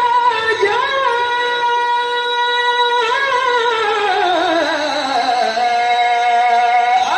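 A male qari reciting the Quran in melodic tilawah style into a microphone. He holds a long high note with fine vibrato, then from about three seconds in slides down through ornamented turns to a lower held note.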